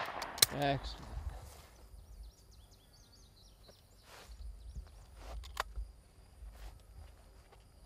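The report of a shotgun fading away in echoes over the first second or so. Then quiet outdoor ambience with faint high chirps, and a couple of sharp clicks a little past the middle as the break-action shotgun is closed.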